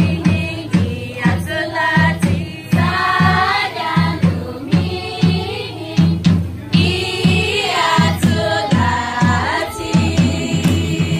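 Group singing in a chant-like style over a steady, regular drum beat.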